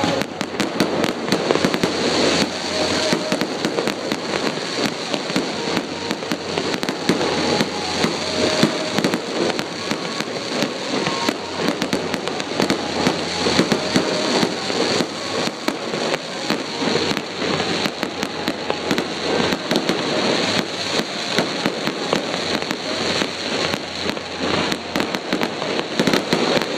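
Aerial fireworks display: a dense, unbroken barrage of shell bursts and crackling pops.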